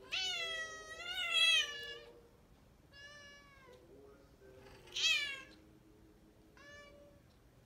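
Cat in heat yowling: one long, wavering call lasting about two seconds, then three shorter meows, the one about five seconds in as loud as the first and the last one faint.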